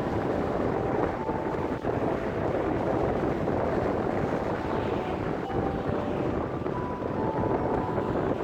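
Wind buffeting the microphone over steady vehicle and road noise.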